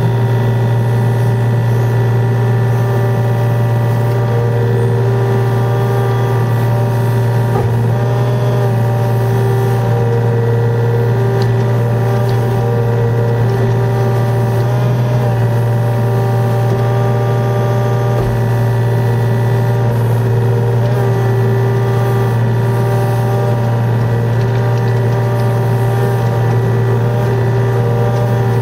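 Yanmar VIO35 mini excavator's diesel engine running steadily at working speed while the bucket digs and levels soil. A constant drone, with a few brief changes in tone as the boom and bucket move.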